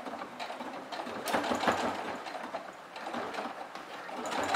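Domestic electric sewing machine running steadily, stitching a straight-stitch seam.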